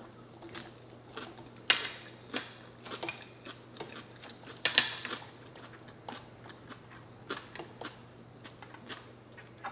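Close-up eating sounds: chewing and crunching of a mouthful of salad greens, with scattered sharp clicks and taps.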